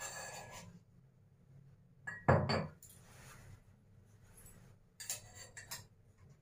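Metal spoon clinking and scraping against a stainless steel bowl as ginger-garlic-chilli paste is spooned onto raw chicken, with one sharp clink about two seconds in and a few quick scrapes near the end.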